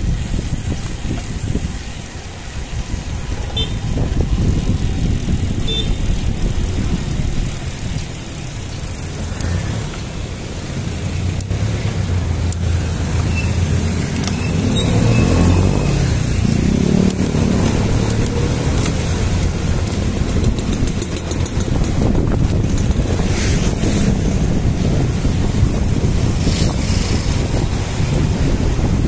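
Wind buffeting the microphone and road rumble from a bicycle riding along a street. About halfway through, a motor vehicle's engine swells up close alongside, then fades.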